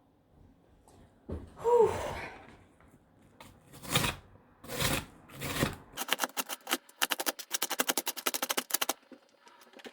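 Onion being chopped with a knife on a chopping board: a few separate scraping and rustling strokes, then about three seconds of fast, even chopping at roughly ten strokes a second.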